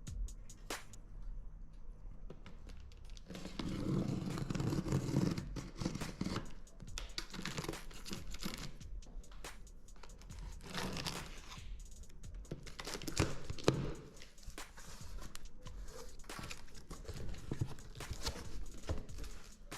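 Packaging being unwrapped and torn open: tearing and crinkling with scattered clicks and knocks, quieter for the first few seconds and then busier.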